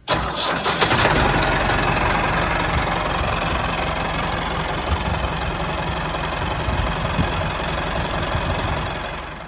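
Tractor engine running steadily with a rapid low chugging, fading away near the end as the tractor drives off.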